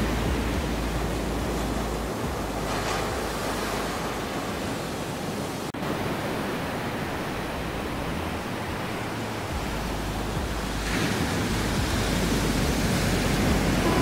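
Ocean surf: a steady rush of waves breaking and washing up the shore, swelling louder about three seconds in and again near the end. There is a momentary dropout about halfway through.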